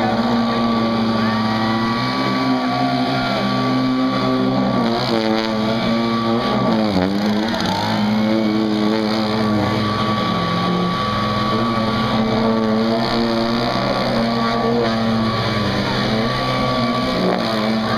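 Handheld gas leaf blower's two-stroke engine running steadily at high speed, blowing air under a homemade plywood hovercraft's skirt. Its pitch dips briefly and climbs back about seven seconds in.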